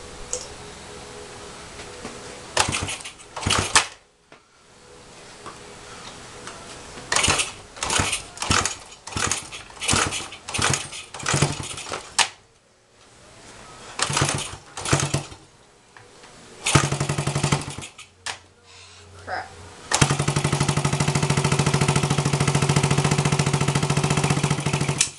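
1975 Honda CB125S single-cylinder four-stroke engine, just started after years of sitting, firing in short uneven bursts that die away several times. It then runs steadily for the last five seconds or so.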